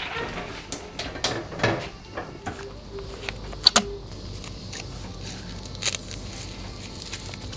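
Scattered light clicks and knocks of objects being handled, with two sharp clicks close together about three and a half seconds in, then quieter.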